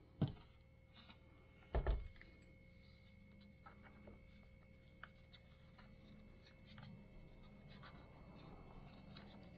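Hands handling the plastic housing of a Minelab CTX 3030 metal detector during reassembly: a knock shortly after the start and a louder double knock about two seconds in, then faint clicks and scrapes as a small fastener is turned by hand.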